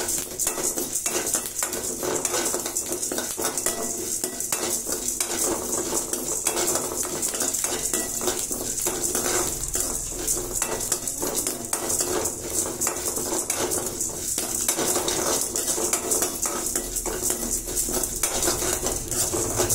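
A metal spoon stirring and scraping dals, rice and curry leaves roasting in a metal kadai, the grains rattling against the pan in a continuous irregular scrape, over a steady high hiss.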